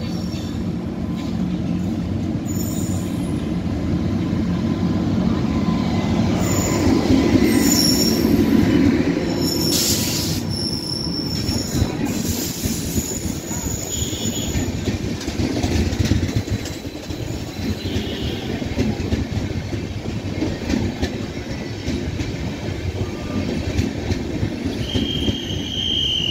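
Charminar Express passenger train running past a station platform: a continuous rumble of wheels on rails that is loudest as the locomotive and first coaches go by, about seven to nine seconds in. A brief hiss comes around ten seconds. Short high wheel squeals recur, and a sustained squeal starts near the end.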